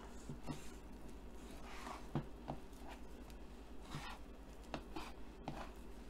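Chef's knife slicing raw beef on a plastic cutting board while trimming off silver skin: faint scraping strokes with a few light taps of the blade against the board.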